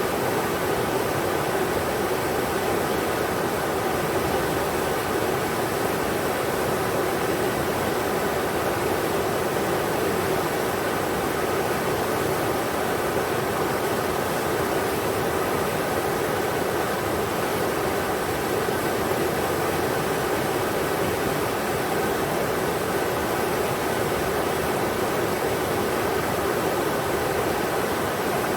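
River water rushing steadily over rocks, an even, unbroken rush of water noise.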